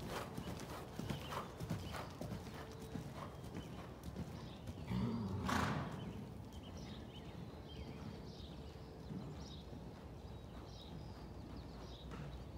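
Horse's hoofbeats on the soft dirt footing of a riding arena, a run of dull repeated thuds, with one loud snort from the horse about five and a half seconds in.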